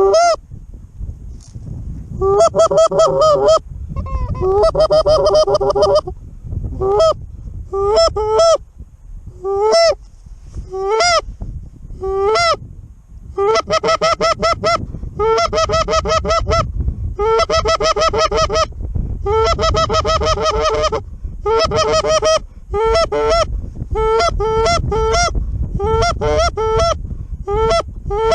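Geese honking and clucking in rapid runs of short, loud calls, each call breaking upward in pitch, with brief pauses between runs.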